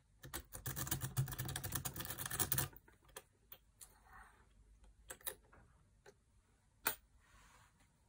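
Metal lock pick raking rapidly across the pins of a night latch cylinder, a dense run of clicks and rattling lasting about two and a half seconds. After it come a handful of separate light clicks and taps of metal tools, the sharpest near the end.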